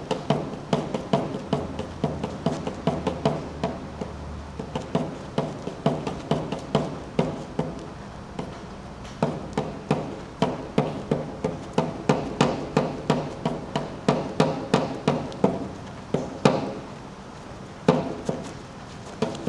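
A hand-made marking tool striking paper on a wall in rapid repeated knocks, about three to four a second, each ringing briefly. There is a short lull near the middle and a brief gap near the end.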